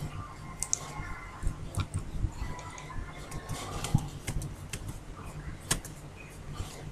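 Computer mouse clicking: irregular sharp clicks, several seconds apart or in quick pairs, over a low steady hum.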